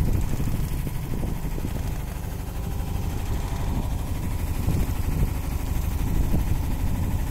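A fishing boat's engine running with a steady low rumble.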